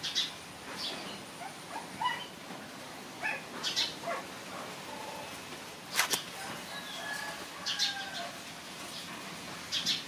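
Background ambience with scattered short bird chirps and calls, and a single sharp click about six seconds in.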